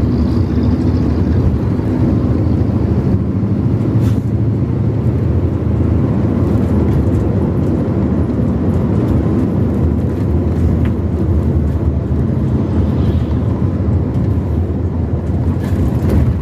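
Steady road noise of a vehicle travelling along a highway: a continuous low engine and tyre rumble that stays even throughout.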